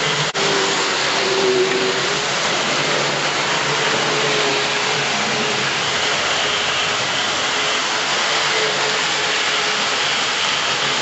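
Model railway train running on the layout's track: a steady whir of its small electric motor and wheels, briefly cutting out just after the start.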